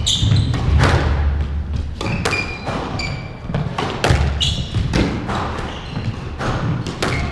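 Squash rally: the ball smacking off rackets and the court walls in quick succession, shoes squeaking on the wooden court floor, and heavy footfalls, with a short echo after the hits.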